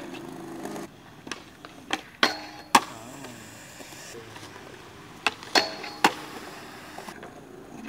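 Skateboard wheels rolling on concrete, broken by two clusters of sharp clacks and knocks as boards pop, strike the handrail and land, about two seconds in and again about five and a half seconds in; a couple of the hits ring briefly.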